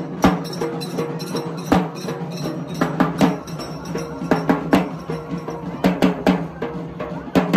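Festival procession drumming: heavy, uneven drum strikes over a held melody line.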